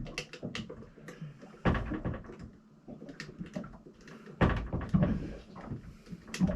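Clicks and knocks of a boat's cabinet door and its new latch being handled and pushed, with heavier thumps about two seconds in and again around four and a half to five seconds.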